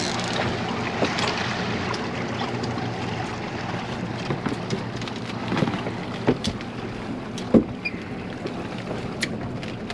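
Boat motor running steadily, with wind noise and a haze of water, and a scattering of sharp knocks and clicks in the second half.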